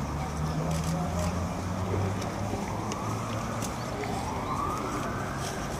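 Steady low rumble of city traffic. About halfway through, a siren begins to wail, its pitch rising slowly.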